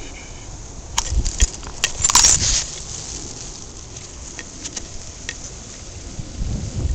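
Handling noise from a handheld camera and a fabric dog leash held against it: a few sharp clicks about a second in, then a brief rattle just after two seconds. Low wind buffeting on the microphone near the end.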